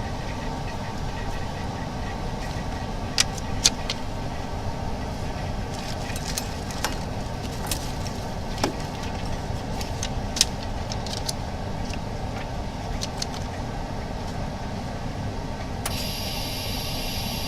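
BM02 edge laminator running its timed laminating cycle, a steady low mechanical hum, with a few light clicks scattered through it. A higher hiss joins in near the end.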